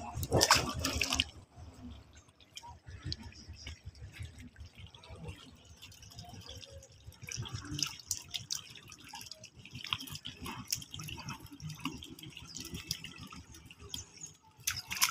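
Hands splashing and groping through shallow muddy water, with a loud splash about half a second in, then scattered small splashes and drips.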